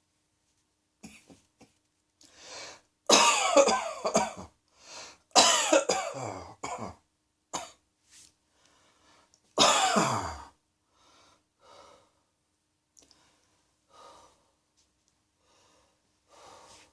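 A person coughing in three loud fits, each a quick run of harsh coughs, about three, five and a half, and ten seconds in, with quieter breaths and small throat sounds between.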